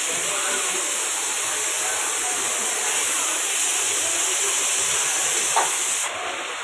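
Steady rain falling with a loud, even hiss. The hiss eases slightly about six seconds in.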